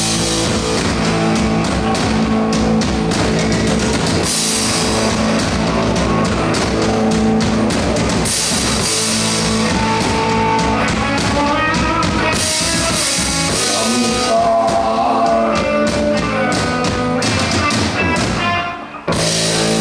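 Live rock band playing: drum kit, electric guitar and bass, with a guitar lead line in the middle and the band briefly dropping out just before the end.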